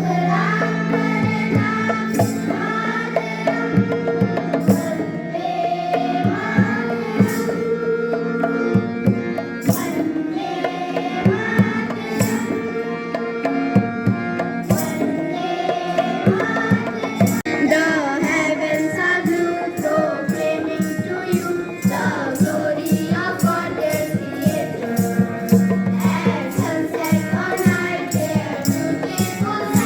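Indian devotional-style music with tabla drumming over a held drone and a wavering melody line; the drum strokes come noticeably faster from about halfway through.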